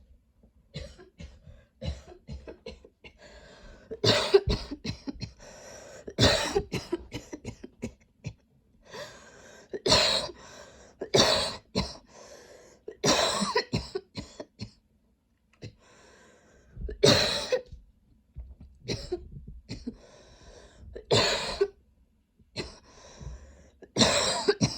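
A woman coughing hard in repeated spells of several coughs each, with short pauses for breath between them, from a lingering tickle in her throat.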